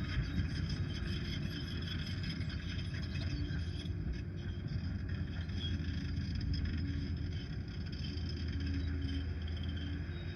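Liebherr PR 746 crawler dozer running steadily, its diesel engine a low, even rumble.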